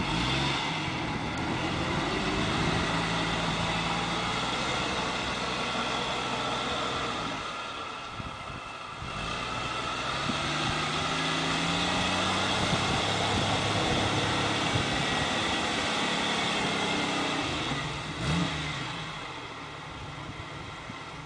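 Lifted Jeep CJ's engine running under load as it drives, its pitch rising and falling with the throttle. The sound dips briefly about eight seconds in, swells with a short rev about eighteen seconds in, then fades near the end.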